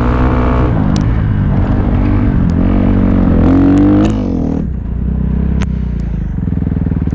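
Yamaha YFZ450 quad's single-cylinder four-stroke engine running, revved up for a moment about halfway through, then dropping back to a low idle with a fast even beat. The engine keeps dying, which the riders blame on a dead battery.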